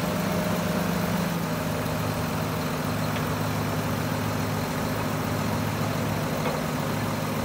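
Heavy diesel engines idling steadily, from a John Deere tractor and a concrete mixer truck standing side by side. The low drone shifts slightly in pitch about a second in.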